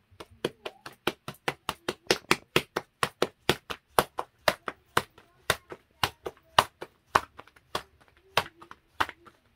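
Ball of bolani dough slapped back and forth between the palms, about four sharp slaps a second, as it is flattened and stretched by hand into a round.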